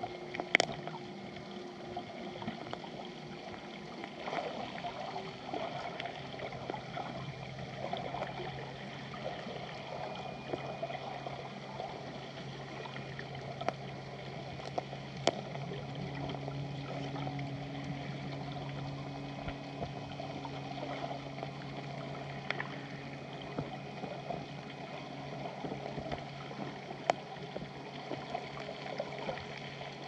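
Underwater ambience: the steady low hum of a distant boat engine carried through the water, with a background crackle and a few sharp clicks, one near the start, one about halfway and one near the end.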